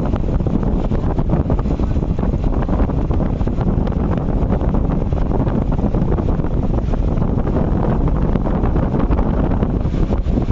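Steady wind buffeting the microphone: a loud, even rumble with no pauses.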